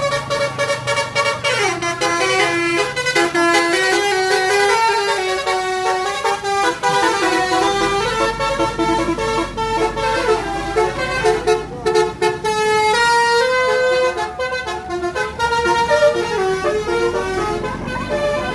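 Indonesian bus 'telolet' horns, multi-tone musical air horns, playing quick melodic runs of stepped notes that change pitch every fraction of a second and sound almost without pause.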